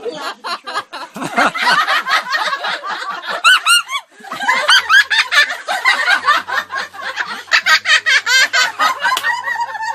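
A parrot imitating human laughter: a long run of rapid, high-pitched 'ha-ha' syllables, breaking off briefly about four seconds in and then starting again.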